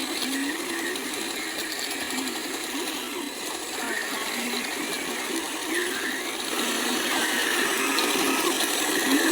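Small electric motors and plastic gears of remote-control construction models whirring, the pitch wavering up and down as the machines work.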